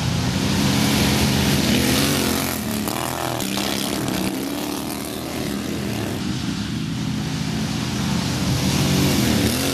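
Racing riding lawn mower's engine running hard at speed. It grows louder as the mower comes close, about a second in and again near the end.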